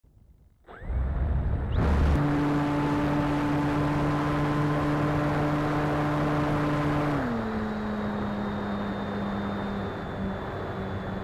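Electric motor and propeller of a SkyClimber-based RC FPV plane running at high throttle over a steady rushing noise, starting about a second in. A little past halfway the motor's pitch glides down and holds lower as the throttle is eased back.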